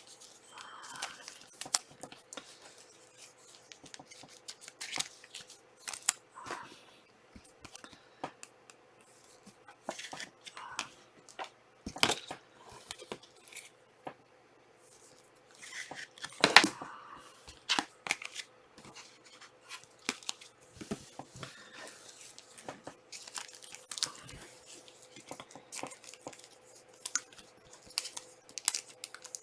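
Trading cards and their packs being handled: scattered clicks, scrapes and crinkles as cards are slid, sorted and packs opened, with two sharper snaps near the middle.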